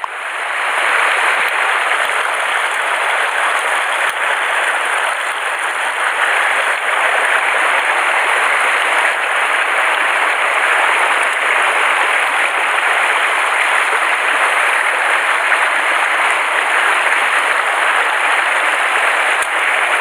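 Shallow mountain stream running over rocks: a steady rush of water, fading in over the first second.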